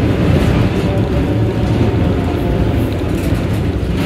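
Vintage tram running along street track, heard from inside the car: a steady, loud low rumble of wheels on rails and running gear.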